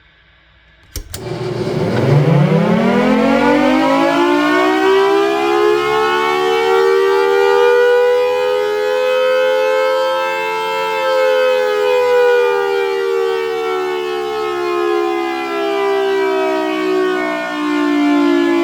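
Civil defense warning siren sounding a test. After a click about a second in, it winds up fast from a low growl into a steady wail of several tones at once. Its pitch peaks midway, then slowly sags.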